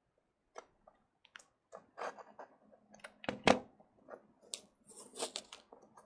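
Sticky paper wrapping being pulled off a parcel by hand: irregular crinkling, crackling and tearing, with one sharp loud knock about three and a half seconds in.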